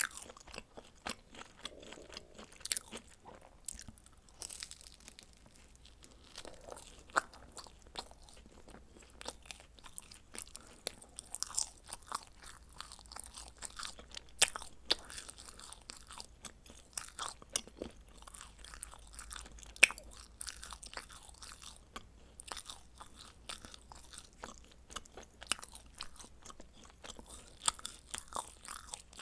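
A person biting and chewing pizza close to the microphone, with many short, sharp crunches of the crust throughout.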